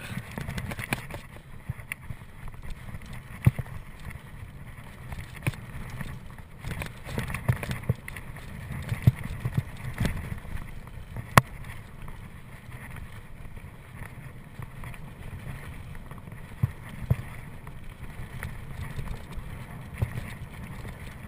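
Mountain bike ridden along a dirt trail: a steady rumble of tyres and wind on the microphone, with scattered sharp knocks and rattles as the bike goes over bumps.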